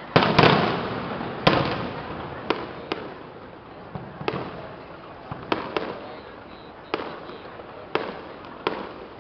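Aerial firework shells bursting. The loudest is a heavy boom about half a second in that dies away over a second or so, followed by a string of sharper single bangs, roughly one a second, some in quick pairs.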